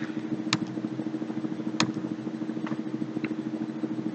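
A few separate computer keyboard keystrokes, chord names being typed into a score, over a steady low droning hum.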